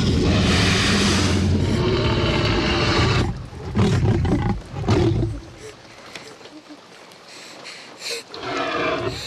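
Film sound effect of a Tyrannosaurus rex: a loud, growling roar for about three seconds, then shorter snorts and breaths, quieter through the second half. A short, higher pitched sound comes near the end.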